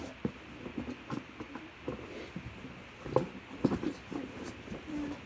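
Scattered light taps, clicks and rustles of small objects being handled, with a couple of louder knocks about three seconds in.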